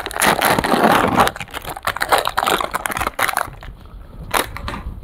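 Plastic ice cream wrapper crinkling and tearing as it is peeled open, a dense crackle for about three and a half seconds. After that it goes much quieter, with one short sharp sound near the end.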